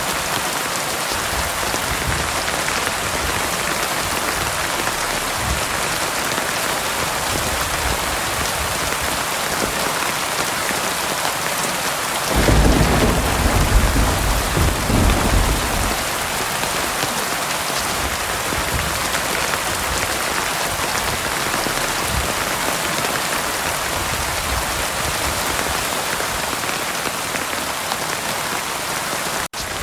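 Heavy rain pouring in a steady hiss, with a roll of thunder rumbling for about three seconds a little before the middle. The sound cuts out for an instant near the end.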